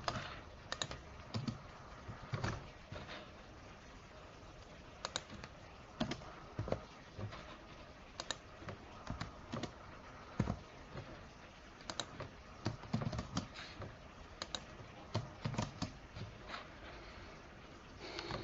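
Computer keyboard typing: irregular keystrokes in short runs with brief pauses between them.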